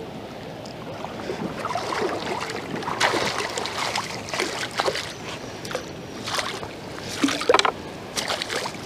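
River water splashing and sloshing in irregular bursts as a caught fish is released back into the flow, the loudest splashes about three seconds in and again near the end.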